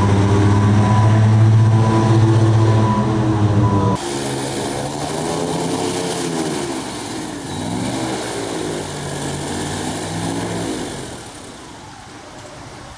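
Airboat engines and air propellers running: a loud steady drone at first, then after a sudden change a drone that slides up and down in pitch and fades away near the end.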